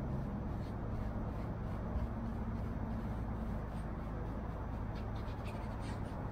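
Faint, scratchy brush strokes as a small brush is drawn along the finishing tape on a fabric-covered headrest, over a steady low hum.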